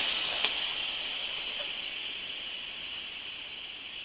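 Instant Pot Duo Nova electric pressure cooker venting steam through its lid's release valve after the quick-release button is pressed: a steady hiss that slowly fades. Only a little pressure is left, after a 15-minute natural release.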